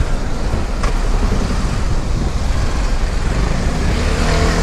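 Wind and road noise from a Vespa Primavera 150 scooter filtering through traffic, with its single-cylinder engine running underneath. A single click comes about a second in, and the engine note comes back up steadily near the end.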